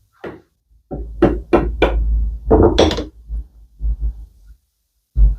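Hammer knocking on wood, knocking apart the dry-fitted mortise and tenon joints of a frame-and-panel assembly: a quick run of sharp knocks about a second in, then a few lighter, spaced taps.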